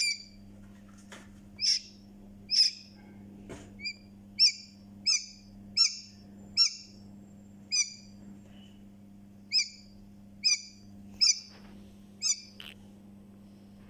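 Newly hatched chick peeping: a series of short, loud, high peeps, roughly one a second, that stop about three-quarters of the way from the end. A steady low hum lies underneath.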